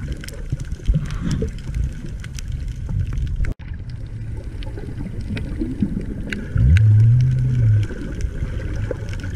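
Underwater sound picked up by a camera below the surface over a coral reef: a low rumbling wash of water with scattered crackling clicks. A loud low hum swoops up and holds for about a second, some six and a half seconds in.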